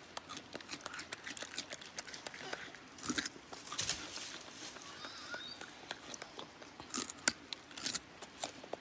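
An animal chewing: irregular crunching clicks, with louder clusters about three, four and seven seconds in.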